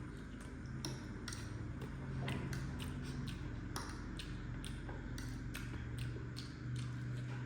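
A person eating spicy noodles and eggs close to the microphone: a string of short, sharp mouth clicks and smacks of chewing, about two or three a second, over a steady low hum.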